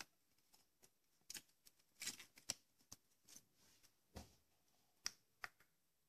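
Near silence broken by a few faint, scattered clicks and light plastic taps from a vacuum cleaner's foam filter and its plastic frame being handled.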